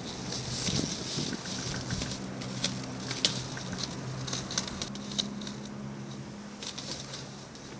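Cats play-fighting: scattered soft scuffles, claw clicks and pattering of paws, busiest in the first five seconds, over a faint steady hum.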